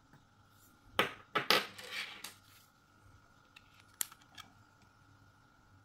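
Small steel hair-clipper blade parts clinking and clattering as they are handled and set down: a burst of clatter about a second in, then a few lighter clicks around four seconds.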